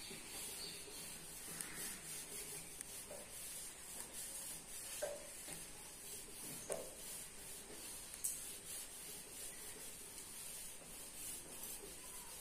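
A whiteboard being wiped clean by hand: faint, quick, repeated rubbing strokes across the board surface, with a few light knocks along the way.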